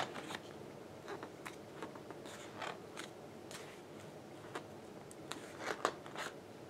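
Glossy pages of a large photo book being turned and handled by hand: quiet paper rustles with scattered light taps and clicks.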